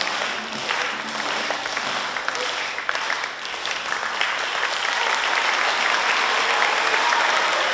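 A crowd applauding, with a few voices mixed in; the clapping grows louder and fuller about halfway through.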